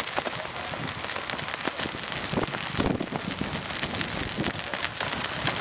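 Steady rain, a continuous hiss scattered with many small sharp ticks of drops striking close to the microphone.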